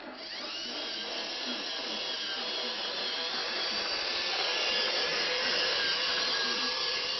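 Toy train locomotive's electric motor and gears whirring as the train starts off, the whine rising in pitch in the first half second, then running steadily.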